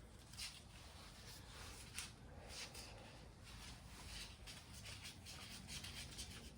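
Faint rubbing and scraping with a few light clicks as loosely fitted bolts and the valve cover are taken off a Kubota V2203 diesel engine by hand.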